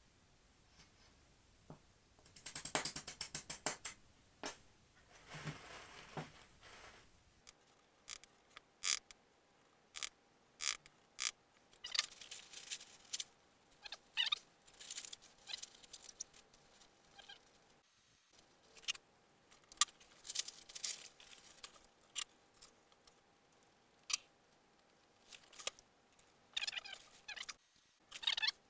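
Bench-work handling noises: a squeezed plastic glue bottle sputtering in two quick rattling spurts, then many short rustles and crackles of plastic sheeting and a tool being handled, with quiet gaps between.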